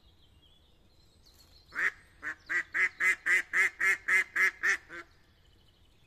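A live decoy hen duck calling: a run of about a dozen loud quacks at about four a second, starting about two seconds in. This is the hen's calling series used to draw wild drakes in to the decoy.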